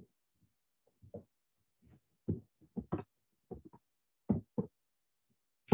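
Computer keyboard being typed on: a run of about a dozen short, dull key taps at an uneven pace.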